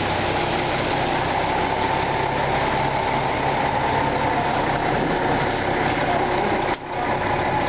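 Truck engine running steadily, a dense drone with a low hum, dropping out for a moment nearly seven seconds in.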